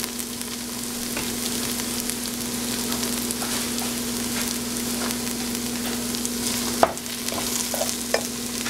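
Potatoes, onion and cumin sizzling in oil in a pan, with a spoon stirring and clicking against the pan now and then, including a sharp knock about seven seconds in. A steady low hum runs underneath.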